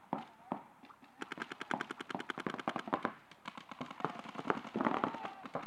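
Paintball markers firing a rapid string of shots, about ten a second for roughly two seconds starting about a second in, followed by scattered single shots.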